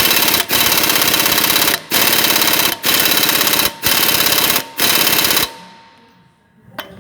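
Ingersoll Rand 3/8-inch stubby pneumatic impact wrench hammering in about six bursts of roughly a second each, the trigger pulled again and again, then stopping about five and a half seconds in. It is hammering on seized lug nuts that it is failing to break loose.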